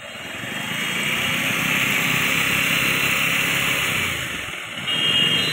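Motorcycle engine running steadily, growing louder over the first second or so. A steady high-pitched tone joins about five seconds in.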